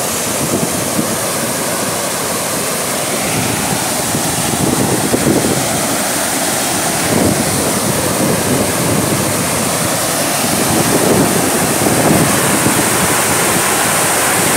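Floodwater from a dam at full capacity rushing down the concrete spillway channel: a loud, steady roar of churning white water.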